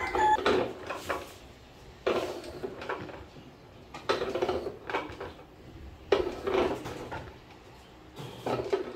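Egg-grading machine running with eggs on its conveyor, its mechanism giving a short clattering burst of clicks and knocks about every two seconds over a low steady hum.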